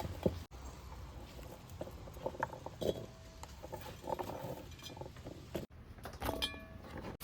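Several short pitched animal squeaks or whimpers, with a few light clinks over a low steady hum; the sound cuts out abruptly twice.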